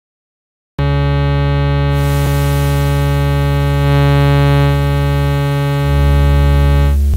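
A steady, loud synthesizer tone from a Pure Data model of the Roland SH-101's oscillator and source mixer starts about a second in: square and sawtooth waves mixed with a sub-oscillator and a hiss of white noise. Its tone shifts twice as the mixer sliders are moved. Near the end the bright upper part cuts off, leaving the deep sub-oscillator tone and the noise.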